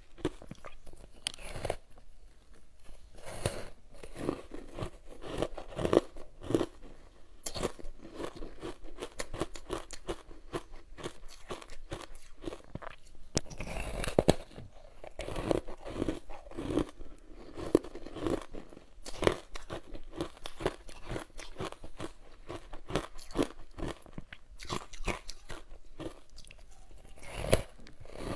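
Ice coated in matcha powder being bitten and chewed: irregular crunches and crackles, one after another.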